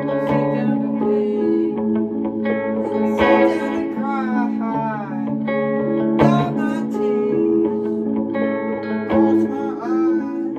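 Electric guitar played through an effects pedal chain with reverb: held notes and chords ringing over a steady low note, with a few bent notes in between.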